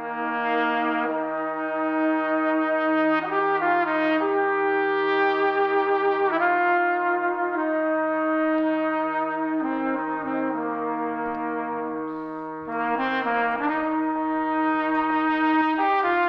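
Brass ensemble led by trumpets playing slow, sustained chords, the notes held and changing every second or two over a steady low note. It starts suddenly out of silence and eases off briefly about three quarters of the way through before picking up again.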